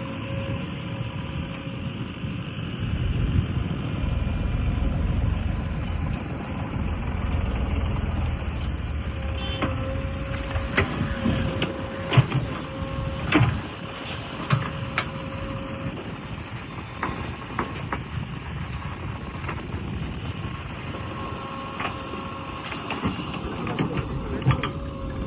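JCB 3DX backhoe loader's diesel engine running at work, louder for a few seconds early in. From about ten seconds in there are scattered knocks and clanks, a steady whine through the middle, and more knocks near the end.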